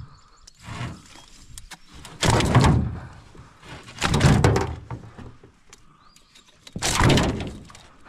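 Handling noise on an aluminum canoe's floor, with gear being moved and a tape measure pulled out across it: three noisy scrapes of about half a second each, about two, four and seven seconds in, with small clicks and knocks between.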